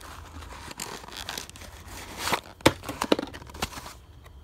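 Plastic parts bags and cardboard parts boxes rustling and crinkling as a hand rummages through a toolbox drawer, with a few sharp knocks and clicks about halfway through.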